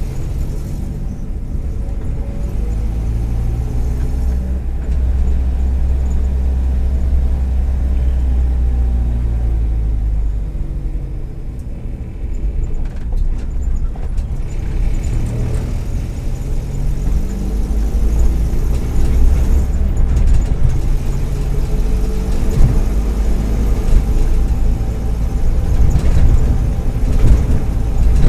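Volkswagen EA111 1.4-litre four-cylinder engine of a 2009 Kombi under way, heard from the van. Its pitch sinks gradually, dips about twelve seconds in, then climbs steadily as it gets louder again. The engine runs with worn spark plug leads and coil, which the owner says cause occasional misfires, and an exhaust manifold he believes is probably cracked.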